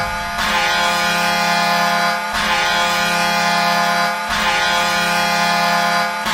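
Hockey arena goal horn blowing repeated long blasts of about two seconds each, one running straight into the next, a steady chord with many overtones.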